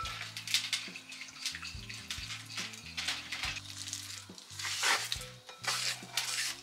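A wire whisk swishing and clinking against a glass bowl of liquid marinade, then diced raw chicken scraped off a flexible cutting mat and sliding wetly into the bowl, with a few sharper scrapes near the end. Background music with a low bass line plays underneath.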